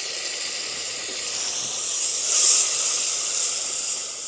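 A steady hiss, swelling about two and a half seconds in, from an aluminium pot of fried onion-and-spice masala cooking over a small gas-cylinder burner, just given a little water and being stirred with a ladle.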